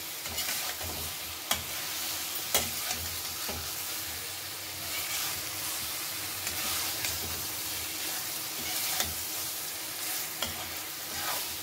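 Metal spatula stirring steamed masoor dal fritters through frying masala in a metal kadhai, over a steady sizzle, with a few sharp clicks of the spatula striking the pan.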